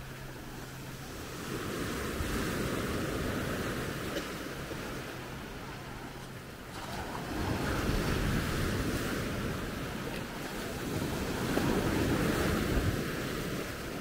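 Small sea waves breaking and washing up a sandy beach, the surf swelling about every four to five seconds, with some wind on the microphone.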